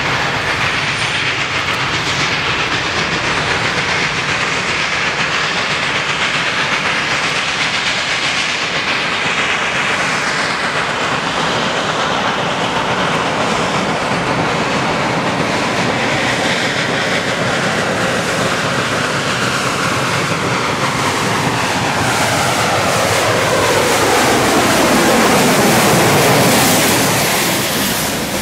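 Western Maryland Scenic Railroad No. 734, a 2-8-0 steam locomotive, approaching under steam and passing close by, growing steadily louder to a peak near the end. As it passes, the freight cars behind it roll by with a clickety-clack of wheels on the rail.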